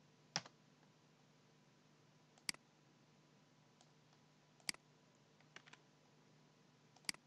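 Computer mouse buttons clicking: four sharp single clicks about two seconds apart, with a close pair of fainter clicks between the third and fourth, over a faint steady hum.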